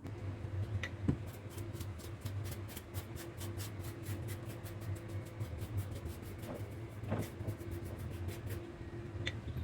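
Rapid, even scraping strokes, several a second, over a steady low hum.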